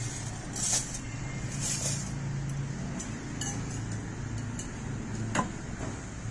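A few light clinks and knocks of tableware as a ceramic bowl is set onto a plastic saucer and metal spoons go into it, the sharpest clink about five seconds in, over a steady low hum.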